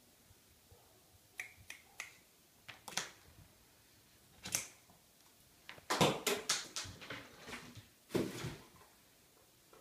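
Sharp clicks and clatters of a small hard toy on a hardwood floor: single knocks at first, then a quick run of bounces that die away about six seconds in, and one more loud knock near the end.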